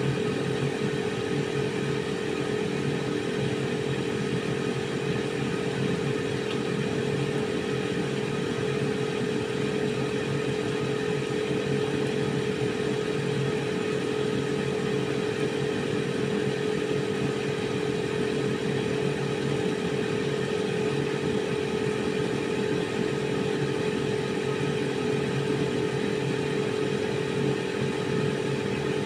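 Team Home air fryer running partway through a 10-minute cooking cycle. Its fan gives a steady hum with an airy whoosh.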